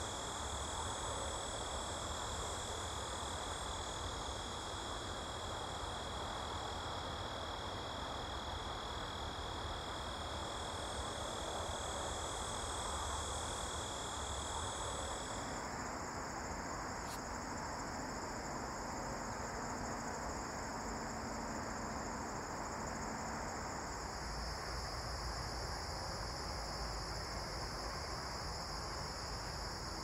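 Steady chorus of crickets and other singing insects: several high, continuous trills at different pitches layered together. About halfway through, the lowest trill stops and the mix of pitches changes.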